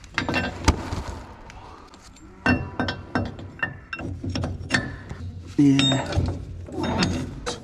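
Steel clinks and knocks from a topper's hammer flails and mounting bolts being handled against the rotor during a flail change, several ringing briefly. The loudest clank comes about five and a half seconds in.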